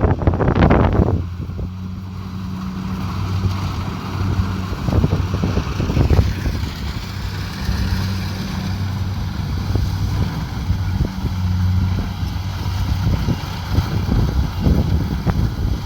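Kubota DC70 Pro combine harvester's diesel engine running steadily with a low hum under a rushing noise. A louder rushing burst comes in the first second.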